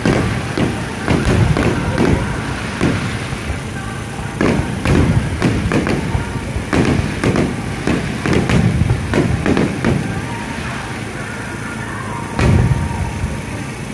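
Fireworks shells bursting in a rapid, irregular run of booms, easing off after about ten seconds, then one more loud boom near the end.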